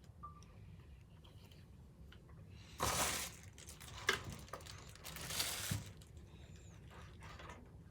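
Rustling and crinkling of packing material while drill press parts are handled for assembly, in three short noisy bursts about three, four and five and a half seconds in.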